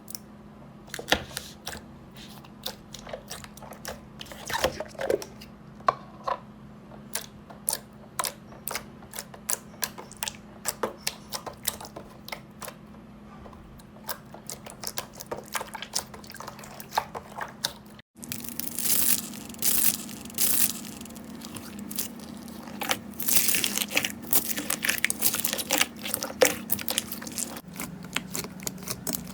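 Slime being handled by hand, giving sharp crackling pops and clicks. After a brief break partway through, the crackling turns denser and hissier.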